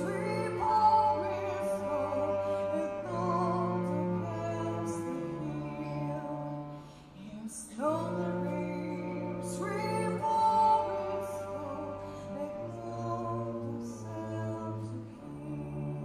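Two cellos playing a slow minor melody over long bowed low notes that change every two seconds or so, with a woman singing over them with vibrato.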